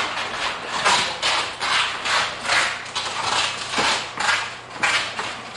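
Rhythmic rasping strokes, about two a second and slightly uneven, like something being scraped back and forth.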